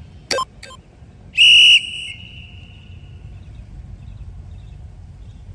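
Tabata interval timer signal: a short click, then about a second in a loud, steady, high beep lasting about half a second, marking the switch between a 20-second work period and a 10-second rest.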